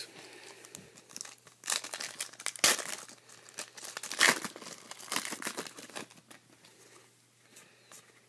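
Trading card pack wrapper being torn open and crinkled, loudest twice in the middle, followed by fainter light rustling and ticks as the cards are handled.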